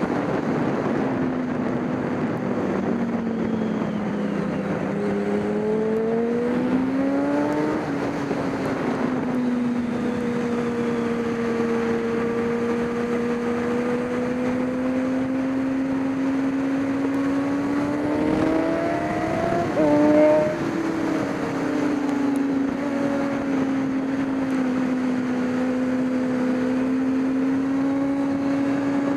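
GT race car engine running hard: its pitch climbs and then drops abruptly about eight seconds in, stays fairly steady, then climbs and drops again about twenty seconds in, with a short louder burst at that second change. A steady hiss of noise runs beneath it.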